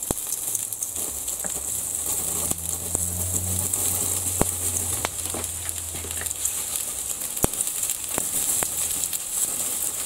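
Water sizzling and hissing into steam on a red-hot boron-steel padlock hasp, with a few sharp crackles. A low hum underneath stops about two-thirds of the way through.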